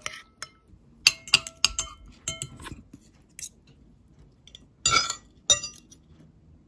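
Metal spoon and fork clinking against a ceramic plate: a run of short ringing clinks, then two louder ones about five seconds in.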